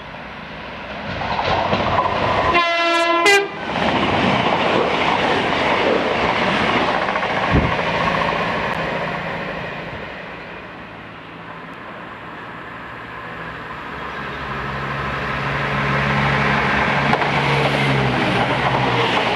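CrossCountry Voyager diesel multiple unit passing through at speed with wheel clatter, sounding a short horn blast about three seconds in. Its sound fades away, and a second train passes close near the end with a steady low hum.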